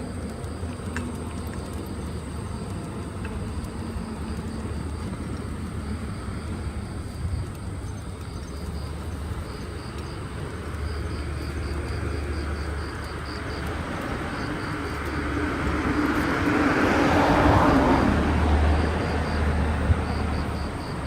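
Outdoor rumble with a vehicle passing, building to its loudest about three-quarters of the way through and then fading.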